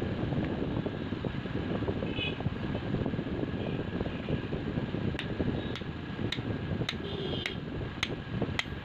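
A steady low mechanical rumble, like a running fan or blower, with light sharp ticks starting about halfway through and repeating about twice a second.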